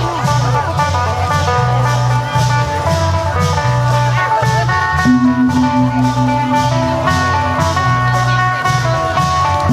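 Isan procession music: a phin (Isan plucked lute) playing a melody over klong yao long drums keeping a steady, regular beat. A held low note comes in about halfway through.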